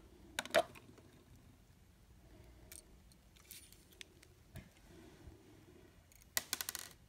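Small clicks and taps of fingers and a screwdriver handling a tiny plastic-and-metal N scale tender truck and drawbar, a couple of clicks about half a second in and a quick run of clicks near the end.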